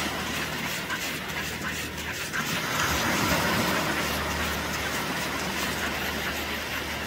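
Small sea waves breaking and washing up a sandy beach, a steady rush that swells about three seconds in, over a steady low hum.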